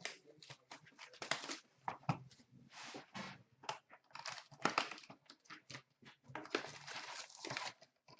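Trading-card pack wrappers and their cardboard box being handled and torn open: quick, irregular crinkling and rustling with tearing.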